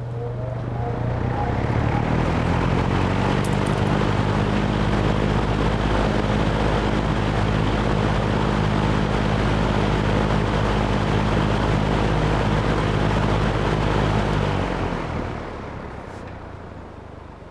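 Vintage Lakewood P-20 20-inch box fan coming up to speed over the first couple of seconds. It then runs steadily on high, with a motor hum under the rush of air from the blades, and is switched off about fifteen seconds in, its sound falling away as it begins to spin down.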